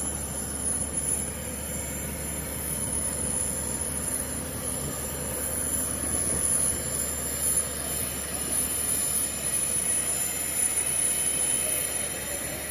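Steady mechanical drone with a thin, high-pitched whine held throughout, the kind of running-machinery noise heard on an airfield apron.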